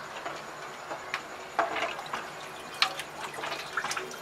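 Water being poured from a glass into a cooking pot of rice, with a few light knocks of the glass and pot.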